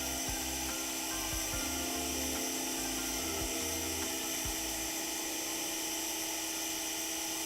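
Electric sanding tool running steadily with a high whine as the edge of a wooden toy knife blade is ground sharp, over background music.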